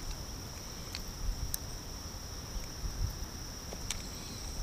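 Insects buzzing in one steady high-pitched band, over a low rumble and a few faint clicks.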